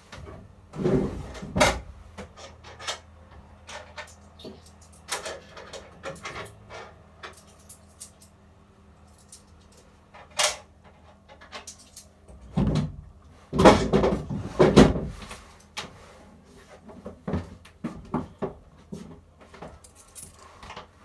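Irregular handling knocks and clicks with metallic jingling around a coin-operated kiddie ride train between rides, with louder thumps about a second in and again around thirteen to fifteen seconds in.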